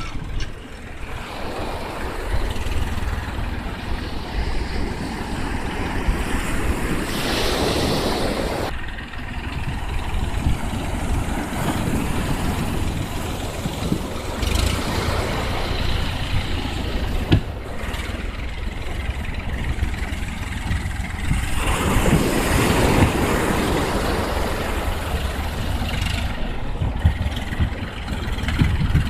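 Wind rumbling on the microphone, with surf breaking and washing up the beach in two louder surges, the first about a third of the way in and the second near the end.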